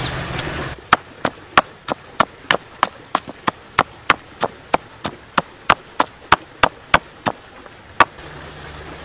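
Stone pestle pounding red chilies in a stone mortar: a steady run of sharp knocks, about three a second, starting about a second in and stopping near the end.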